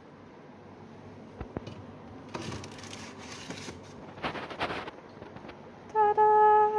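Rustling and scraping in two spells as a baking-parchment-lined tin is taken out of a fridge and handled, followed near the end by a sung 'ta-da'.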